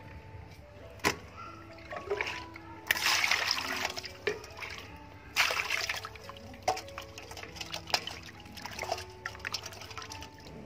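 Water splashing and sloshing in a steel bowl as hands rub and rinse raw beef, in bursts with a few sharp clicks. Soft instrumental background music plays throughout.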